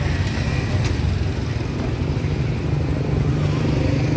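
Street traffic with motorbike engines running steadily, with faint background voices.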